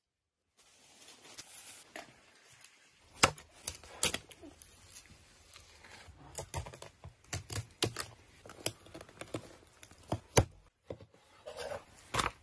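Large knife cutting and chopping through a grass carp's flesh and bones on a wooden board: an irregular series of sharp cracks, clicks and knocks.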